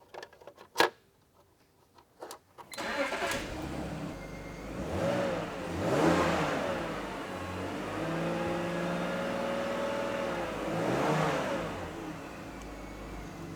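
BMW engine starting after its fuel injector seals were replaced: it catches about three seconds in, is revved up and back down twice, and settles to a steady idle, running very smooth with no fuel leak. A sharp click comes about a second in, before it starts.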